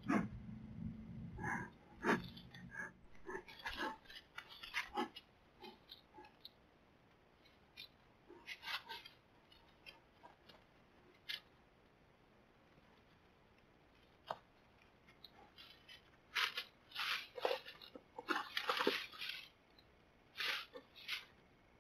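An American black bear moving through dry brush: a close, muffled rumble of fur against the trail camera at the start, then scattered crackling rustles of leaves and twigs, thickest near the end as it stands up and pulls down the branches of a shrub.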